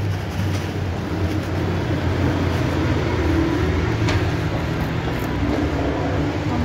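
Steady low rumble of street traffic and running engines.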